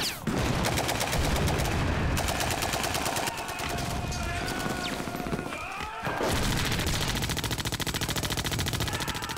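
Machine gun firing long bursts of rapid shots in quick succession, with a brief break about six seconds in before the firing resumes.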